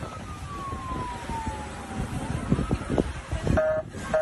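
Emergency vehicle siren wailing, its pitch sliding slowly down and then rising again, over wind noise on the microphone. Near the end a steady horn-like tone sounds twice briefly.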